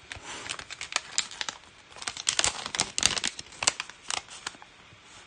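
Crinkling and crackling of a sheet of nail polish strips and its plastic packaging, handled as a strip is picked out, in short irregular rustles with a brief lull about a second and a half in.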